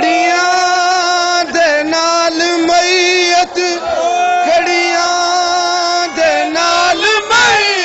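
A man's voice chanting a mourning lament in long, drawn-out held notes, each slightly wavering, with short breaks between the phrases.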